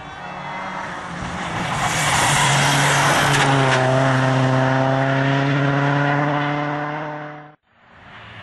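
Rally car engine passing close at high revs, with a loud rush of tyre noise as it goes by, then holding a steady note. The sound cuts off abruptly near the end and a fainter engine follows.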